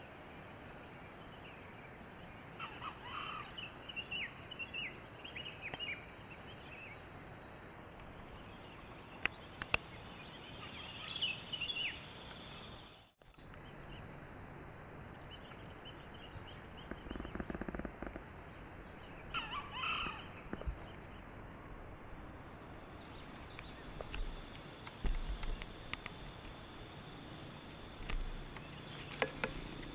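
Rural tropical outdoor ambience: a steady high insect drone with scattered bird calls, some of them harsh. There are two sharp clicks about nine seconds in, and the sound drops out briefly around thirteen seconds.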